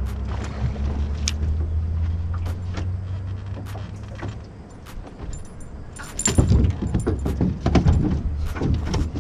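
A low steady hum that fades out about four seconds in, then a run of knocks, clicks and thumps, loudest near the end, as people move about on the deck of a small fishing boat.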